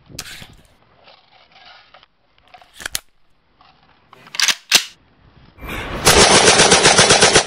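A few sharp metallic clicks as an AK-47-style rifle is handled, then, about six seconds in, sustained rapid automatic rifle fire that is loud and continuous.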